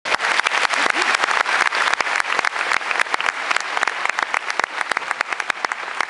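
Audience applauding, many hands clapping at once, the clapping thinning out over the last second or so.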